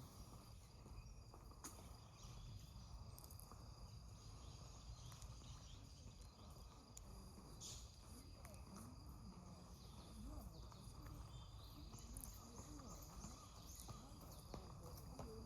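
Faint outdoor ambience: a steady low hum under thin, steady high-pitched tones. Faint distant voices come in after the midpoint, and a few short, high chirps are heard, one about halfway through.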